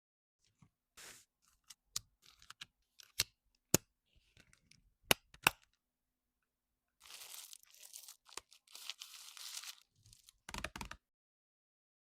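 Packaging being handled for a nail-art order: a series of sharp clicks and taps, then a few seconds of tearing and crinkling, ending in a short louder rub.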